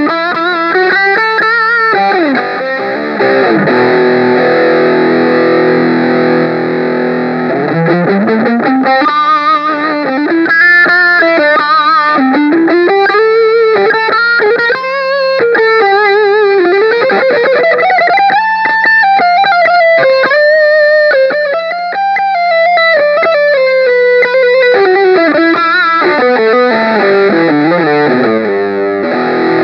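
Electric guitar played through a Zoom G7 multi-effects processor with an effects patch: low notes ring under a lead line that slides up and down in long, smooth sweeps.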